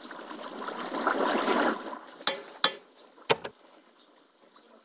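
Potato pieces deep-frying in a large pot of hot oil while being stirred, a loud crackling sizzle that fades after about two seconds. Three sharp metal clinks follow, a little over a second apart.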